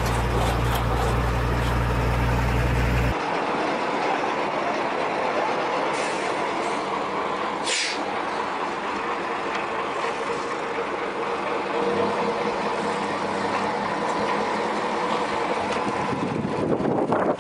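Heavy truck engines running, with a deep rumble for the first three seconds, then a steadier running sound. A short burst of compressed-air hiss comes about eight seconds in.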